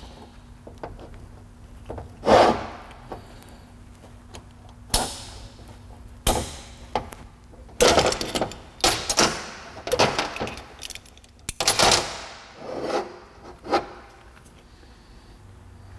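Metal locking C-clamps being released from a cast power steering pump and set down on a steel workbench: a run of separate metallic clanks, clicks and scrapes, several of them sharp, with quieter handling in between.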